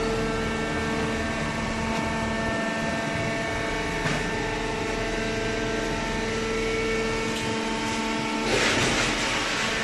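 Horizontal hydraulic cardboard baler running, its hydraulic power unit giving a steady hum with several whining tones. A louder rushing noise joins about eight and a half seconds in.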